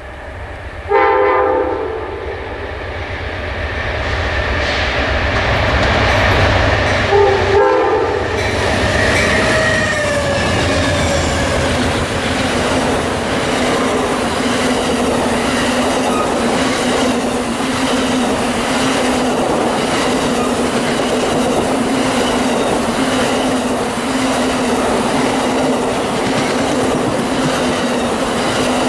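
Amtrak Auto Train's locomotive horn sounds two short blasts, about a second in and again about seven seconds in. The train then rolls past with a continuous rumble and a steady hum, and its bilevel passenger car wheels clickety-clack regularly over the rail joints.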